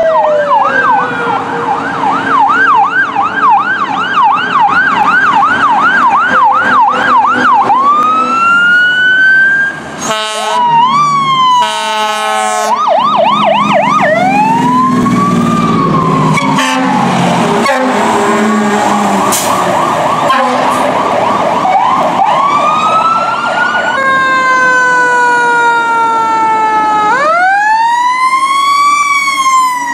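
Fire truck sirens on emergency responses. The sirens switch between a fast yelp and a slow rising-and-falling wail across several passes. Near the end a siren with many overtones rises and then slowly winds down.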